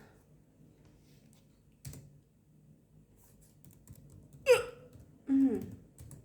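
A woman hiccuping: a faint hiccup about two seconds in, then two loud ones close together near the end, each a sudden catch with a quick drop in pitch.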